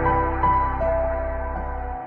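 Ambient intro music: slow held synth notes over a low bass, which cuts out near the end.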